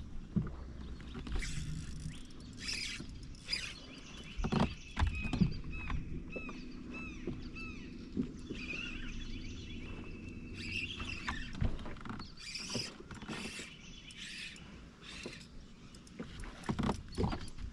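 Scattered knocks and rattles on a bass boat over a low steady hum, with repeated short high chirps and squeaks.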